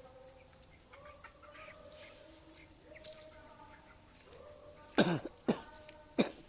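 A flock of chickens calling, with overlapping drawn-out calls. Near the end come three much louder, sudden sounds, each sweeping down in pitch.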